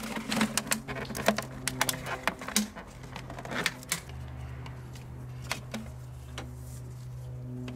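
Empty plastic water bottles and rubber hoses being handled and fitted together: a quick run of clicks, taps and crinkles in the first few seconds, then only a few scattered taps. A steady low hum comes in about four seconds in.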